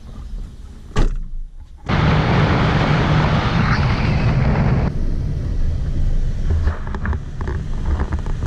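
A single bang about a second in, then loud wind rushing over the microphone with road noise from a car driving along. From about five seconds in, quieter steady engine and road noise heard inside the car's cabin.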